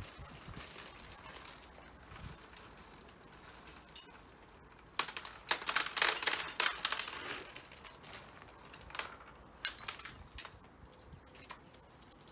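Dry bird food and its containers being handled: scattered small clicks and clinks, with a denser rattle of food being poured from about five to seven and a half seconds in.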